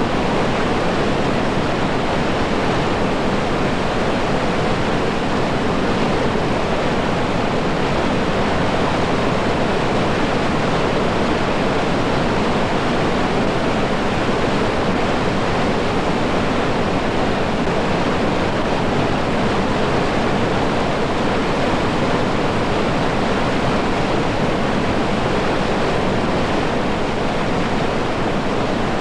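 River rapids rushing steadily: a loud, unbroken wash of whitewater.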